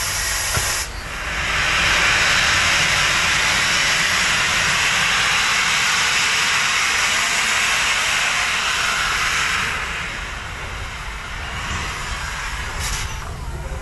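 Peppercorn A1 Pacific steam locomotive 60163 Tornado blowing steam from its open cylinder drain cocks as it moves off, a loud steady hiss that starts about a second in and eases off after about ten seconds.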